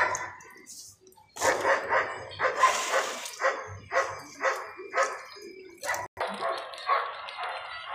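A dog barking repeatedly, about two barks a second, starting about a second and a half in.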